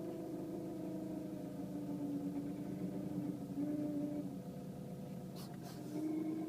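Renault Mégane III 1.5 dCi four-cylinder turbodiesel heard from inside the cabin, running with a steady whine over the engine's drone; the whine steps a little lower in pitch about a second and a half in, fades out past the middle and comes back near the end, with a short click just before. The owner suspects the turbo, having ruled out the fuel pump.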